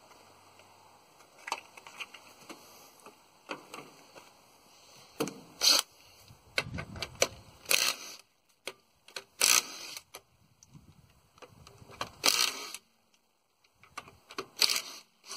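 Scattered clicks and knocks with five short, louder scuffs spaced about two seconds apart.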